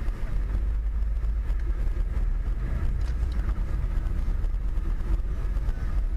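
Steady low rumble of a moving car, engine and tyre noise heard from inside the cabin, with no impacts.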